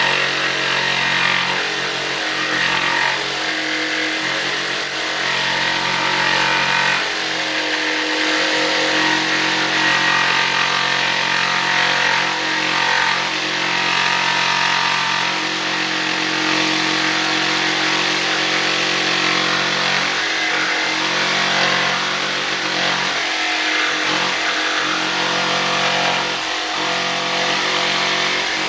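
Electric jigsaw with a scroll blade running continuously, its blade sawing through a steel push bar with a steady motor hum and rasping cut noise.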